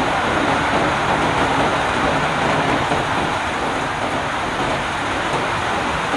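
Wood lathe turning a workpiece, making a steady, even whooshing noise with no pauses.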